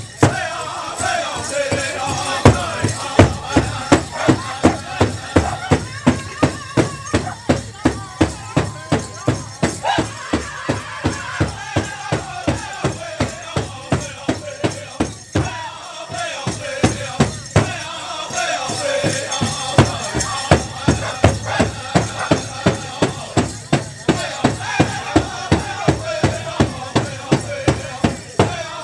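Powwow drum group singing over a large shared drum beaten in a steady beat of about two strokes a second, with the jingling of dancers' bells. The drumming breaks off briefly about halfway through, then comes back in.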